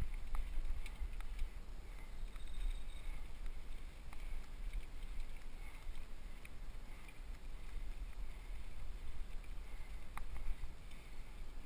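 Steady low rumble of wind and riding noise on the microphone of a helmet-mounted GoPro HD camera on a mountain bike ride, with a few faint clicks scattered through it.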